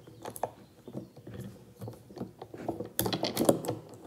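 Small steel saw chain of a 6-inch mini electric chainsaw clinking and rattling in the hands as its links are fed into the groove of the guide bar: a run of light, irregular metal clicks, thickest about three seconds in.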